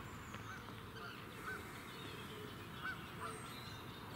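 Waterfowl on the lake calling: a string of short honks, roughly one every half second to a second, with fainter songbird chirps over a low background hiss.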